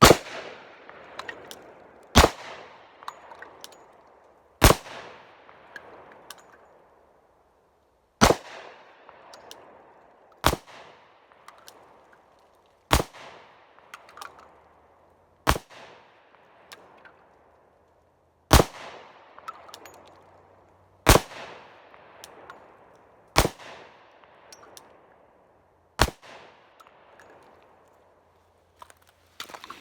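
Glock 29 pistol firing 10mm rounds one-handed. Eleven single shots come about two to three seconds apart, each followed by a long echo that fades away.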